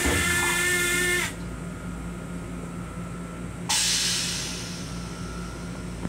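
Two bursts of air hiss over the steady low hum of an M7 railcar. The first lasts about a second and a half and has a whistling tone in it. The second starts about three and a half seconds in and fades away.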